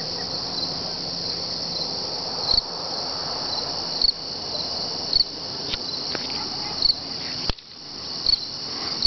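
Crickets chirping in a steady, high-pitched evening chorus. About six sharp clicks cut through it, the loudest moments.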